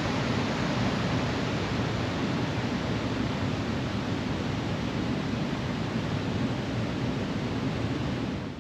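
Waterfall rushing, a steady, even roar of falling water that fades out at the end.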